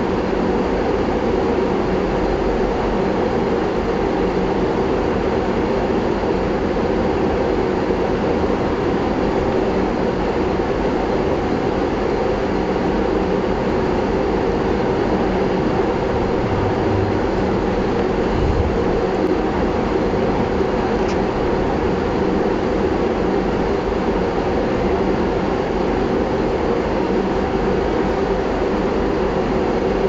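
A steady, loud droning noise with a constant low hum that does not change throughout.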